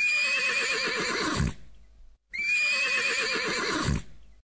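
Horse whinnying twice: two matching high, quavering neighs about a second and a half each, each trailing off at the end.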